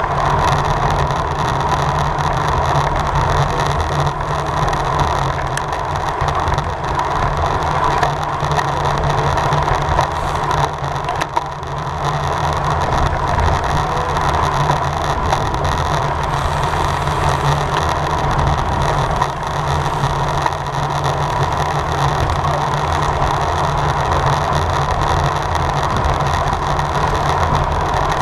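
Steady rush of wind and road noise on a camera riding a racing road bicycle at speed, with the tyres and drivetrain humming under it.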